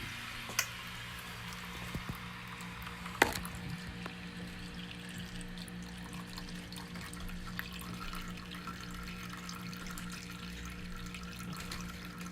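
Water running and dripping from a leaking residential water heater, its pressure relief valve leaking, over a steady low hum. Two sharp knocks, about half a second and three seconds in, the second louder.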